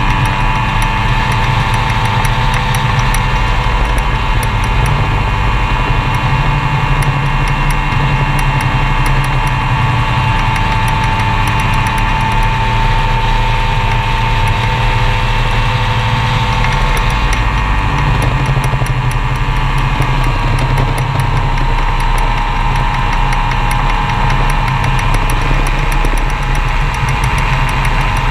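Magni M-22 Voyager gyroplane's engine and pusher propeller running steadily in flight, heard from on board; the pitch dips slightly about twenty seconds in.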